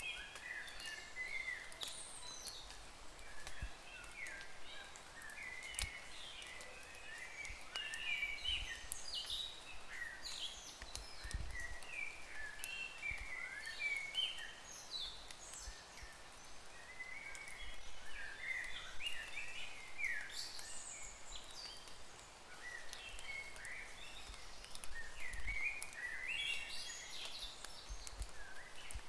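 Small birds chirping: a continuous run of short, high chirps and quick sweeping calls, several overlapping at once.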